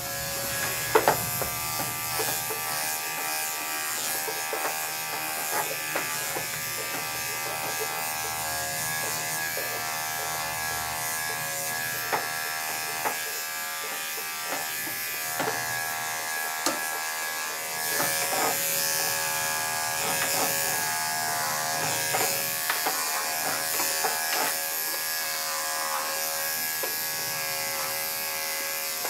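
Electric dog-grooming clippers fitted with a guard comb, buzzing steadily as they are run through a dog's coat, with occasional small clicks.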